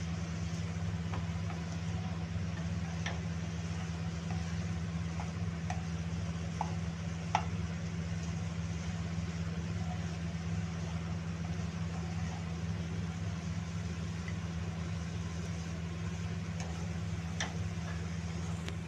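Steady low mechanical hum with a faint hiss underneath, and a few light clicks of a spatula against a nonstick frying pan as chicken is stirred; the sharpest tap comes a little past the middle.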